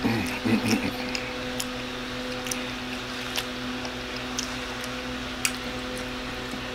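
Close-up eating sounds: a man chewing a mouthful of spaghetti, with scattered wet mouth clicks and smacks and a short hummed 'mm' in the first second, over a steady low hum.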